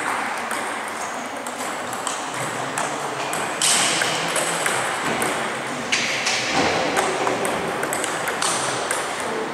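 Table tennis ball clicking back and forth off rubber-faced bats and the table in a rally, a rapid irregular series of sharp ticks.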